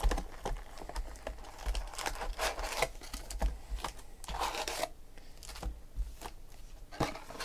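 Plastic shrink wrap crinkling and tearing as a sealed trading-card box is unwrapped and opened, then foil card packs rustling as they are lifted out and set on the table. Irregular crackly bursts, busiest in the first few seconds.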